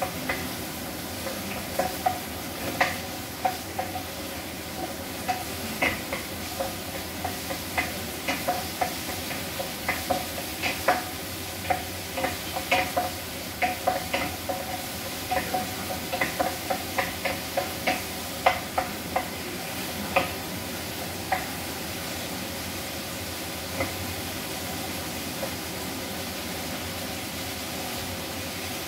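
Cherry tomatoes sizzling in a frying pan while a wooden spatula stirs them, knocking against the pan in quick irregular clicks. The knocks stop about two-thirds of the way through and the steady sizzling carries on alone.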